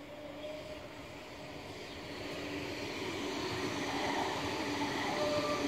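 BVB Bombardier Flexity tram passing close by, its wheels running on the rails with a steady hum over the rolling noise. It grows louder from about two seconds in as the tram comes alongside.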